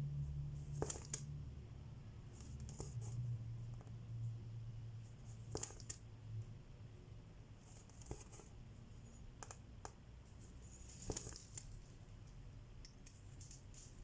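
Needle and embroidery floss going through cross-stitch fabric. Sharp little clicks come as the needle pierces the fabric, and a short rasping hiss follows as the thread is drawn through. This repeats about every two to three seconds.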